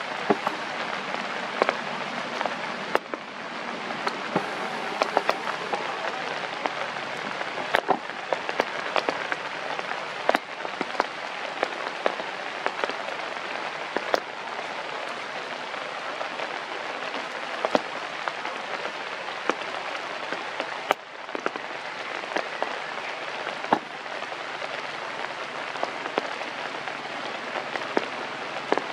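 Rain falling on leaves: a steady hiss dotted with the sharp ticks of single drops.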